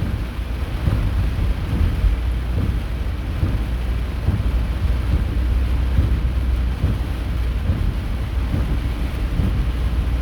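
Heavy storm rain and hail drumming on a car's roof and windshield, heard from inside the cabin, over a steady low rumble.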